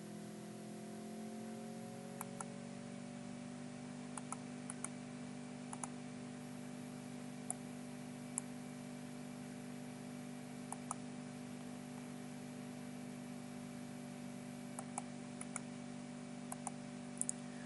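Computer mouse clicking now and then, singly and in quick pairs, over a steady low hum that rises a little in pitch in the first two seconds.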